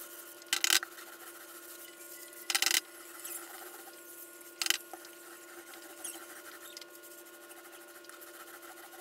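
Polyurethane being spread on a painted wooden desk top with an applicator: short scuffing strokes, three louder swishes in the first five seconds, then quieter rubbing. A faint steady hum sits underneath.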